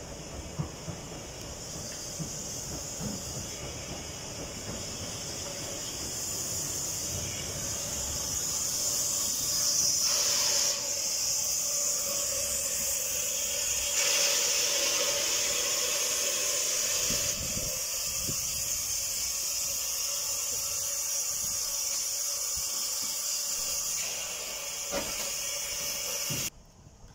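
Steam hissing from the 15-inch-gauge Pacific steam locomotive Green Goddess as it draws into the station and stands alongside. The hiss builds over the first ten seconds, holds steady, and cuts off suddenly near the end.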